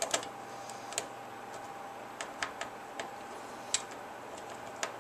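Small, irregular clicks and ticks of a precision screwdriver working the top-cap screw into the small metal parts of a WLToys V913 rotor head, with a faint steady hum underneath.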